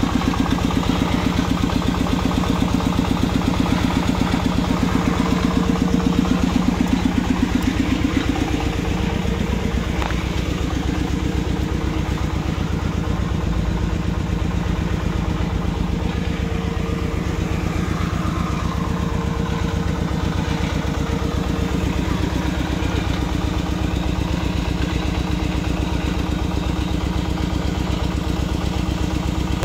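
Single-cylinder diesel engine of a two-wheel 'công nông' tractor chugging steadily, a fast even run of firing strokes, as it pulls its loaded cart through deep mud. Its note dips slightly about eight seconds in.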